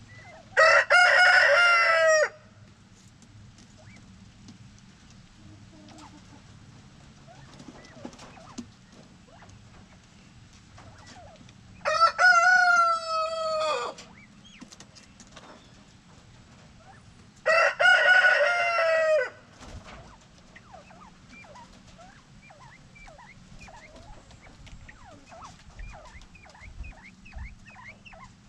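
A rooster crows three times, each crow about two seconds long, with faint short chirps in between.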